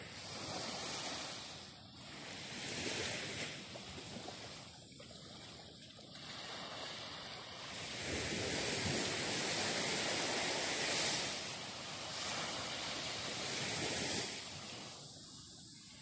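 Small waves from a calm sea washing up a sandy beach, the wash swelling and falling back in slow surges; it is loudest from about halfway through until near the end.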